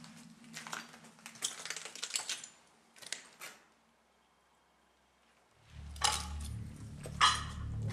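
Footsteps crunching and clinking over rubble and broken debris, a few scattered steps. The sound drops to near silence for about two seconds midway, then two louder crunching steps come over a low steady hum.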